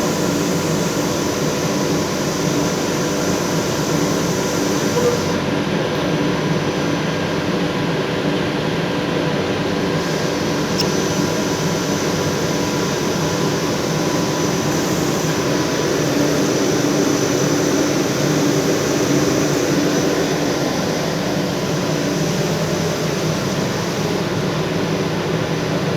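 Plastic bag making machine running steadily: a continuous mechanical drone with several held tones and no pauses.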